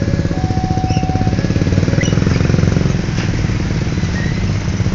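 Several small motorcycle and scooter engines running and pulling away together, with a fast pulsing that swells to its loudest midway.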